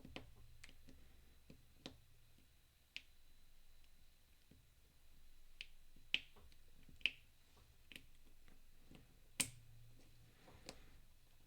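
Scattered small sharp clicks and taps of metal parts as a disc-detainer padlock core is taken apart by hand, about a dozen in all; the loudest few come a little past the middle and shortly before the end.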